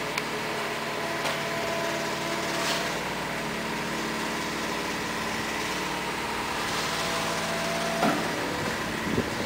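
An engine running steadily out of sight, its hum shifting in pitch a few times, over a steady wash of noise with a few faint clicks.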